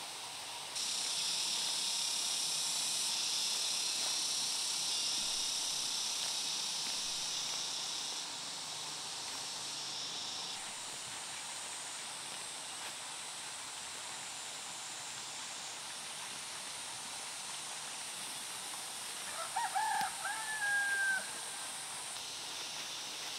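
A rooster crows once, near the end, its last note drawn out. Beneath it is a steady high-pitched hiss that comes in about a second in and fades after about ten seconds.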